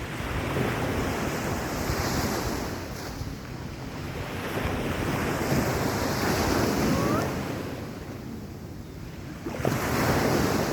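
Sea waves washing onto a sandy beach, swelling and easing several times, with wind buffeting the microphone.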